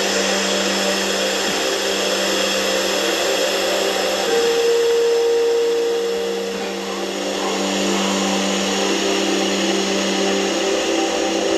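Soundtrack of a TV drama scene: a steady hiss over held low droning tones, with a brighter tone swelling about four seconds in and fading about two seconds later.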